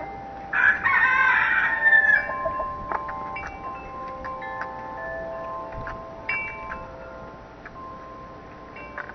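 A rooster crows once, about a second in, for roughly a second and a half, the crow falling at its end. Wind chimes ring throughout, their tones hanging and struck again every so often.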